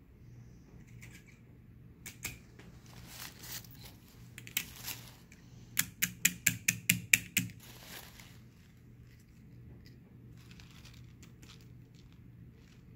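A quick run of about eight sharp clicks or taps within a second and a half, after a few scattered lighter clicks, over a faint steady low hum.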